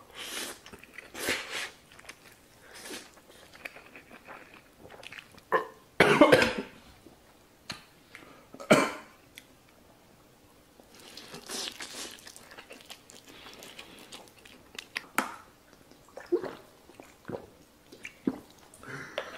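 A man eating extremely spicy noodles, chewing and slurping, breaking into repeated sharp coughs and throat clearing from the heat, the loudest coughs a few seconds in and near the middle. Near the end he gulps water from a plastic bottle.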